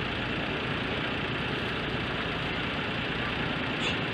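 An engine idling steadily, with a brief high chirp near the end.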